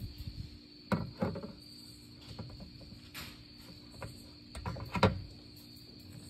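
A few sharp knocks and clatters: two about a second in and a louder cluster around five seconds. Under them runs a faint, steady, high-pitched hum.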